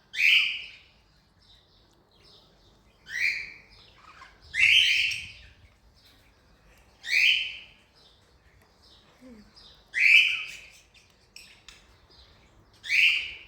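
Cockatiel giving loud, short, shrill contact calls, six in all, spaced every two to three seconds, with softer chirps between them.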